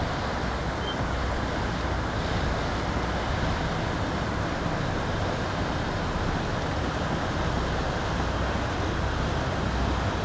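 Rhine cargo ship's diesel engine chugging steadily with a low drone as it passes on the river, under a steady rush of wind on the microphone.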